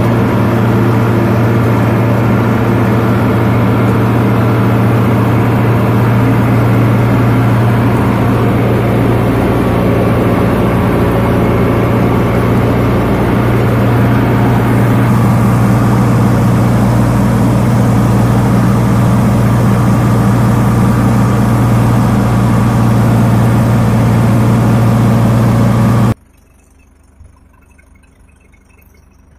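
Sonalika DI 750 III tractor's diesel engine running steadily under load, driving a rotavator through the soil: a constant low drone. It cuts off abruptly near the end.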